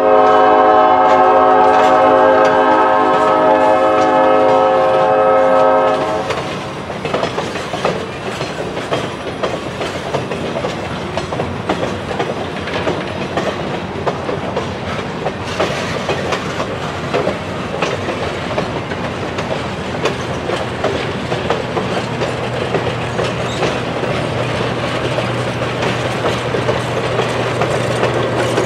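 A train's air horn sounds one long chord that stops about six seconds in. Then passenger coaches roll past with steady wheel noise and clicking over the rail joints. Near the end the low steady hum of the Western Pacific 913 diesel locomotive comes up as it draws level.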